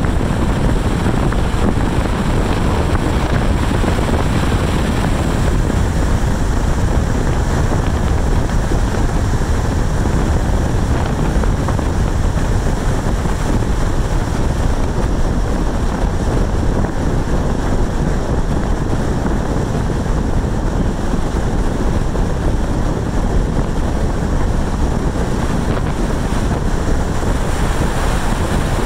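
Steady road and wind noise of a car driving down a mountain road, an even hiss heaviest in the low end with no distinct engine note or other events.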